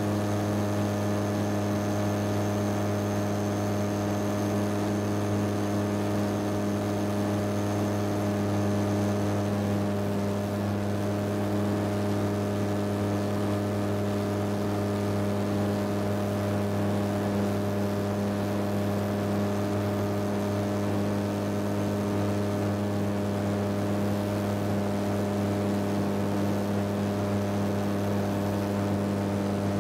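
Titan Tornado II light aircraft's engine and propeller droning steadily in level flight, heard from inside the cockpit.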